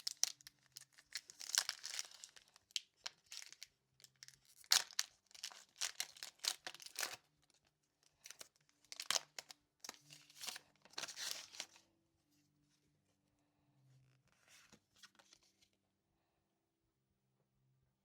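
Foil wrapper of a Pokémon Sword & Shield Rebel Clash booster pack being torn open and crinkled in several irregular bursts, with fainter handling noise later on.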